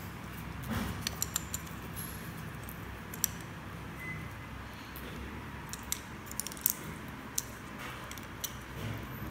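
Scattered small clicks and taps from hands working sticky modelling dough and plastic cutters on a tiled floor, clustered about a second in and again from about six to seven and a half seconds, over a steady low hum.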